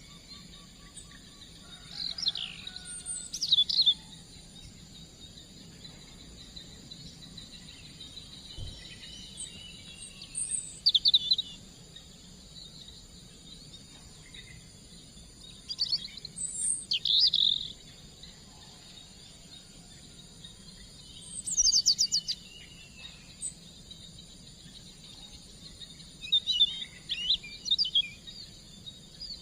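A bird calling in five short bursts of rapid, sharp high notes, every five or six seconds, over a steady high insect drone.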